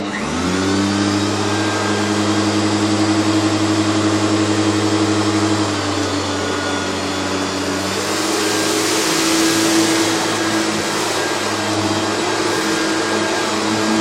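Hoover Turbopower 3 U2880 upright vacuum cleaner switched on, its motor spinning up within the first half second to a steady hum and whine. From about eight seconds in it is pushed over a pile of sawdust, adding a stronger hiss of pickup.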